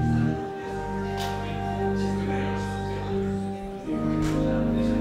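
Church organ playing slow sustained chords over a held bass, changing chord about half a second in and again near four seconds.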